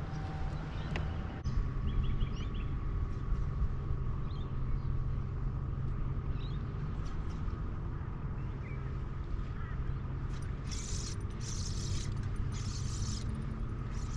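Steady hum of a boat's electric trolling motor, its pitch changing about a second and a half in, with faint bird chirps; a few short high hissing bursts come near the end.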